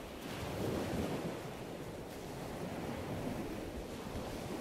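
Ocean surf: a steady wash of waves breaking on a sandy beach, swelling a little about a second in.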